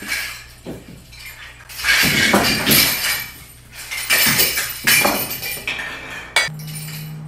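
Small toys clattering and clinking in irregular bursts as a toddler handles and knocks them about. A steady low hum starts near the end.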